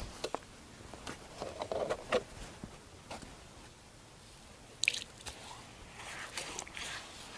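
A few handling clicks and knocks, then about five seconds in, water poured from a plastic jug splashes onto a freshly sawn black walnut slab and is wiped across it by hand, running off the edge.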